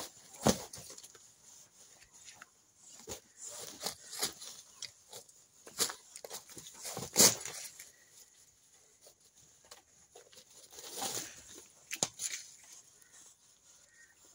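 A Muscovy drake and a rooster fighting: irregular flurries of wing flaps and scuffling in dry twigs and leaves, with the loudest bursts about half a second in, around seven seconds and near twelve seconds.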